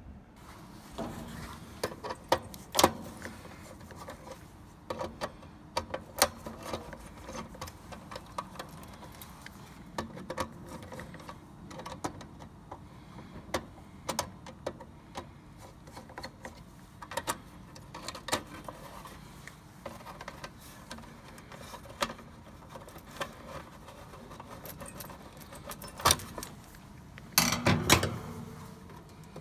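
Irregular metallic clicks, taps and small rattles of hand tools and wire terminals being worked inside a heat pump's electrical control box while a burnt contactor is replaced, with a louder clatter near the end.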